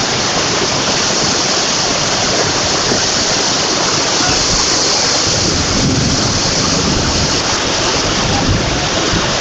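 Floodwater rushing down a street in a torrent: a steady, loud rush of water.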